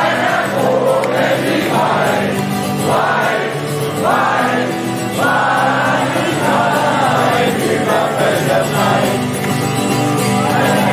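Live rock ballad heard from inside the audience: acoustic guitar and band under singing, with the crowd singing along.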